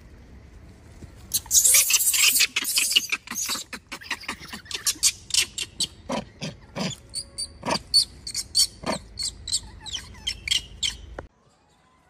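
Baby macaque screaming in distress: a dense run of shrill screams about a second in, then separate high squeals about twice a second, cutting off suddenly near the end.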